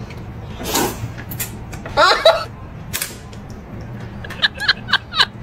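A person slurping noodles from a bowl of noodle soup: a few separate slurps, then near the end a quick run of short squeaky slurps, about four a second.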